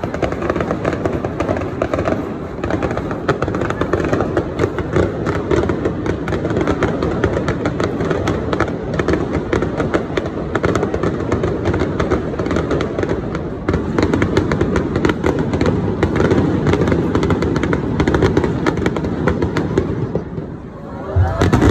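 Aerial fireworks shells bursting in a dense barrage, rapid crackling and booms running together without a break, with a louder boom near the end.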